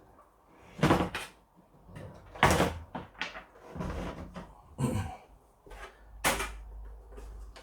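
Plastic case slices of an Acorn RISC PC being handled and set down: four separate knocks and clatters, the loudest about two and a half seconds in, with quieter rustling between.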